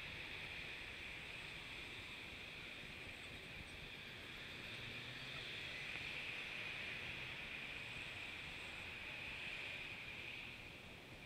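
Steady hiss of outdoor street ambience, distant traffic and wind blended together, with no distinct events; it swells a little in the middle and eases off near the end.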